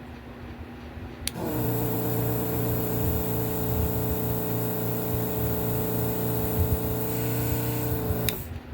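Yihua 948 desoldering station's vacuum pump switched on with a click about a second in. It runs with a steady hum and air hiss at the nozzle for about seven seconds, then clicks off.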